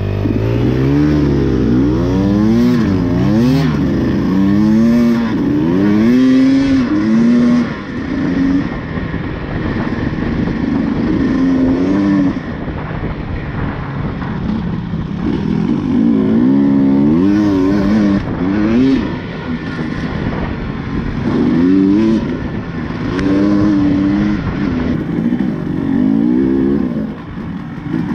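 Dirt bike engine revving up and dropping back again and again as the throttle is worked through the gears, over a steady rush of noise. The revving eases off for a few seconds in the middle and then picks up again.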